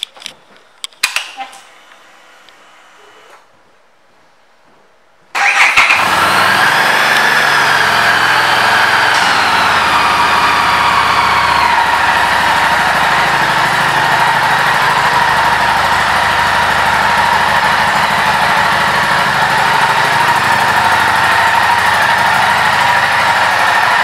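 2015 Harley-Davidson Street 500's liquid-cooled V-twin being started: a few clicks and a faint hum, then about five seconds in the engine catches suddenly. It runs at a fast idle whose pitch wavers and settles over several seconds into a steady idle.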